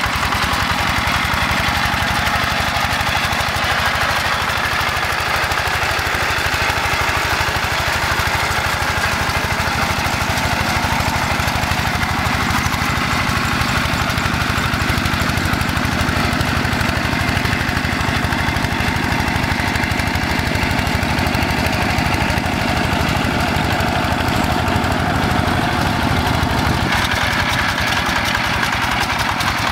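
Quick G1000 hand tractor's single-cylinder Yanmar diesel engine running steadily under load, chugging evenly as its cage wheels pull through a flooded rice paddy.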